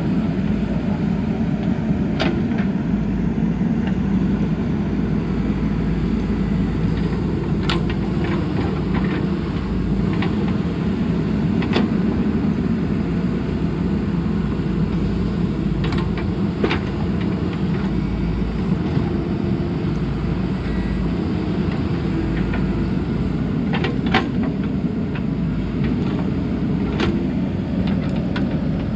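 JCB backhoe loader's diesel engine running steadily under working load. Short sharp knocks come now and then, about half a dozen times.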